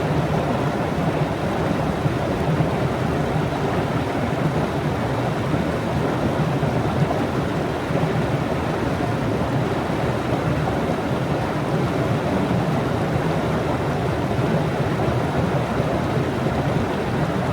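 Waterfall rushing: a steady, dense wash of falling water that holds an even level throughout.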